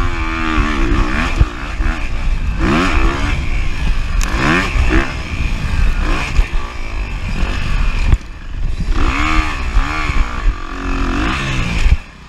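2023 Kawasaki KX250F's single-cylinder four-stroke engine under race throttle, its pitch climbing and falling repeatedly as the rider accelerates, shifts and backs off, with wind rushing over the chest-mounted microphone. The sound drops off sharply for a moment near the end.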